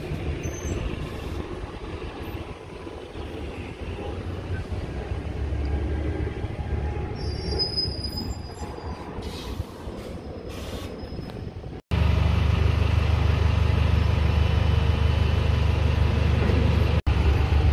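Buses running at a bus station, with a few brief high squeals about seven seconds in. After a cut about twelve seconds in, a bus engine idles close by, loud and steady.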